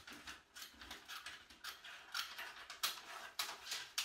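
Scissors cutting along the side of a paper sewing pattern: a run of quick, irregular snips, several a second.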